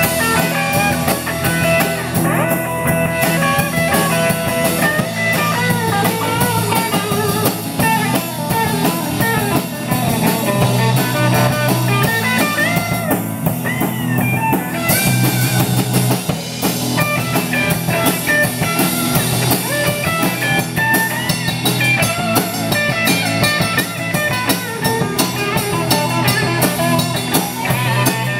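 Rock band playing live: electric guitars over a steady drum-kit beat.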